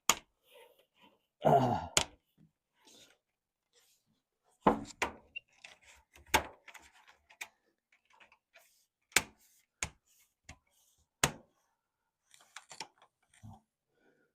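Scattered sharp knocks and clicks, about eight loud ones at uneven intervals with a short rattling cluster about a second and a half in, from pressing a storm door's screen panel and its retaining strip into the door frame.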